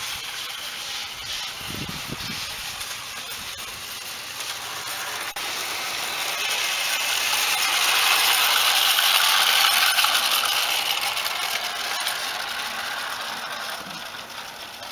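Model locomotive running along garden railway track, its wheels running on the rails; the sound swells as it passes close, loudest about eight to ten seconds in, then fades away.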